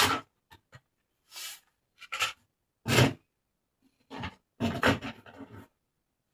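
Toy packaging being handled and opened by hand: a string of short rustles and scrapes, loudest about three seconds in, stopping shortly before the end.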